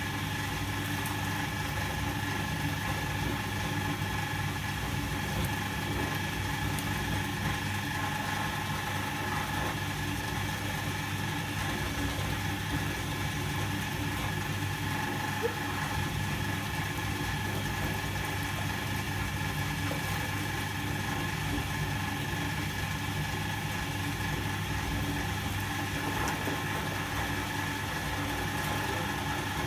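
Volga-8R washing machine running a wash cycle: its electric motor drives the wash with a steady hum and a thin whine over it, holding the same level throughout.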